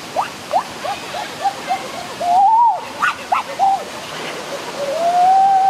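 Stream water rushing over rocks, a steady background. Over it comes a quick series of short rising calls, then two long drawn-out calls, one about two seconds in and one near the end; these calls are the loudest sounds.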